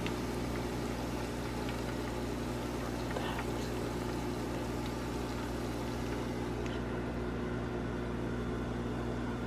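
Microwave oven running with a steady hum, with a few faint clicks of metal tongs against the wire air fryer basket.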